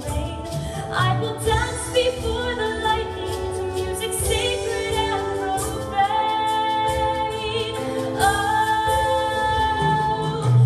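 A woman singing a slow musical-theatre ballad solo, with a live pit orchestra accompanying; she holds long notes with vibrato.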